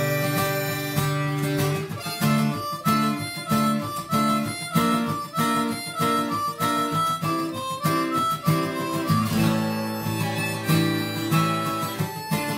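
Harmonica playing an instrumental melody over acoustic guitar accompaniment. The harmonica plays a run of short rhythmic notes, moving to longer held notes about nine seconds in.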